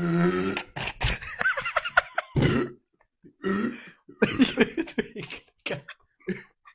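Men burping, coughing and clearing their throats in a string of short bursts after gulping carbonated Sprite, beginning with one long low burp. The fizz of the drink is bringing up the gas and making them cough.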